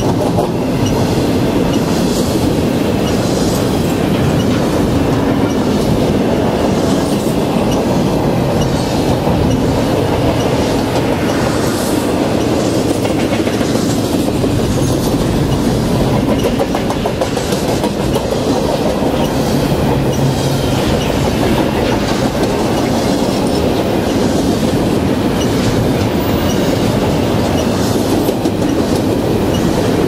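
Double-stack intermodal container train rolling past close by: a steady loud rumble of the well cars with a regular clatter of steel wheels on the rails.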